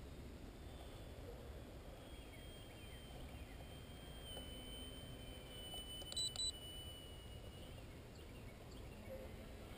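Small RC airplane's electric motor whining faintly at a steady high pitch that steps slightly lower, from about two seconds in until nearly eight seconds, over low wind rumble on the microphone. Two short electronic beeps about six seconds in are the loudest sounds.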